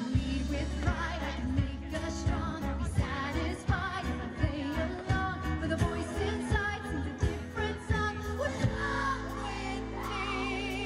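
Live pop-rock band playing a song with singing: electric and acoustic guitars, keyboard and drums, the drums keeping a steady beat.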